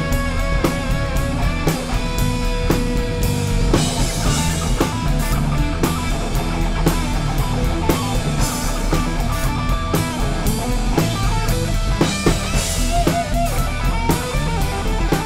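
Instrumental rock music: guitar over bass and a drum kit keeping a steady beat.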